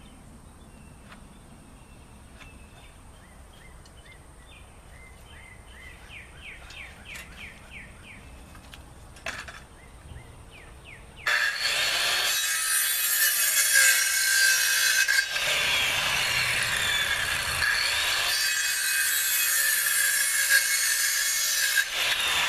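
Faint handling noise and light ticks, then, about halfway through, a power saw starts abruptly and cuts through a 2x4 stud, running loud and steady with a high whine.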